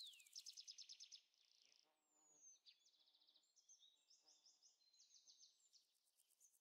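Faint high songbird calls: quick falling whistles into rapid trills at the start, then softer trills and chirps that die away near the end.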